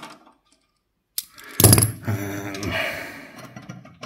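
Metal clicking and rattling of a screwdriver and screw against the steel expansion-slot bracket of a PC case, as the bracket screw refuses to bite. A sharp click comes just after a second in, then a louder clatter about a second and a half in that fades out over the next two seconds.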